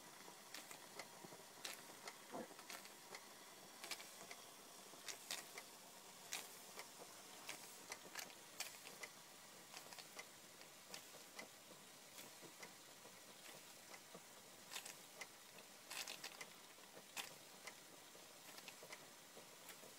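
Schoenner 107/14s toy steam engine ticking over slowly on one burner: faint, light irregular clicks, about one or two a second, over a soft steady hiss.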